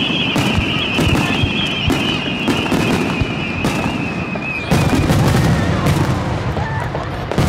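Star mine fireworks barrage: a rapid string of shell launches and bursts banging and crackling over one another. A high steady whine runs under them until about two-thirds of the way through, and a heavier burst of booms starts about five seconds in.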